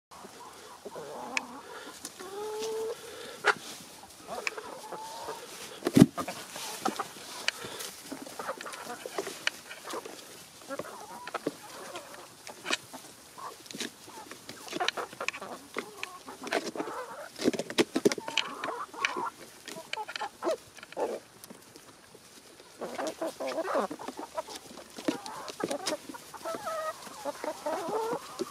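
A flock of backyard chickens clucking softly while they eat, with many sharp taps of beaks pecking at food. One louder knock comes about six seconds in.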